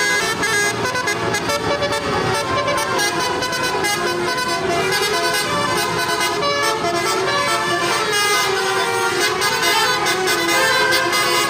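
Bus basuri horn, a multi-tone horn playing a melody as a run of short notes, one after another.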